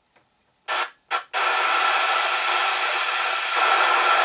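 TTI TCB550N CB radio's loudspeaker giving out heavy static from a weak, distant transmission: two short crackles, then a steady loud hiss in which the reply is barely readable.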